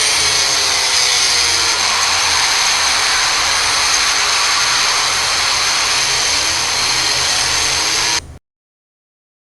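Fake emergency alert alarm audio, deliberately distorted into a loud, harsh, steady hiss with a few steady high tones in it. It cuts off abruptly about eight seconds in.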